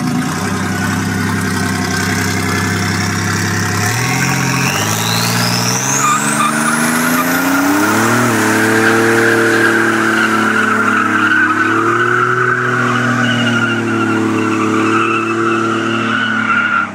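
Buick Grand National's turbocharged V6 revving hard through a burnout as the rear tyres spin and squeal. The engine pitch climbs in steps over the first few seconds, with a high whine sweeping upward, then holds high and wavering with the tyre squeal until a cut near the end.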